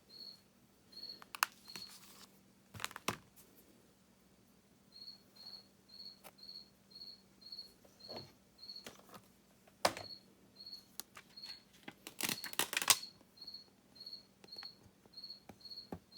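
A cricket chirping steadily at about two chirps a second, pausing for a few seconds early on. Light rustles and taps of cardstock being handled run alongside, loudest in a burst about three quarters of the way through.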